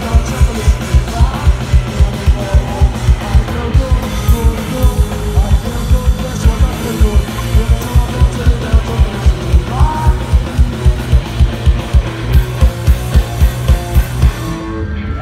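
Live punk rock band playing loud and fast: pounding drum kit at about three beats a second under distorted guitars and bass. The song stops abruptly near the end.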